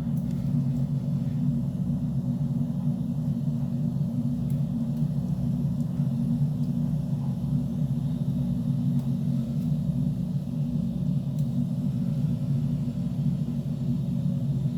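A steady, even low rumble.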